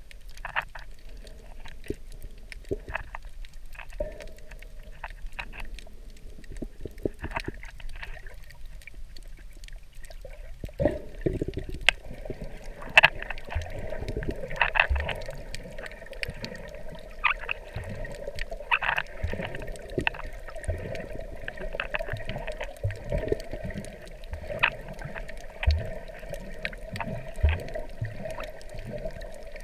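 Underwater sound over a coral reef: scattered sharp clicks and crackles throughout. About eleven seconds in they are joined by a steady hum and irregular low thumps and gurgles of moving water.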